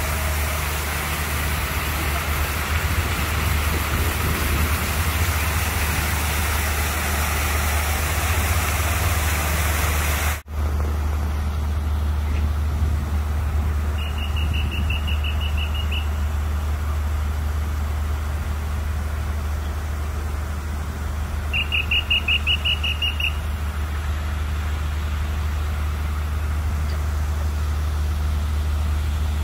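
Outdoor city street ambience: a steady low rumble of traffic with a hiss above it, briefly broken by an edit about ten seconds in. Two short runs of fast, high-pitched beeping come through, a couple of seconds each, about seven seconds apart.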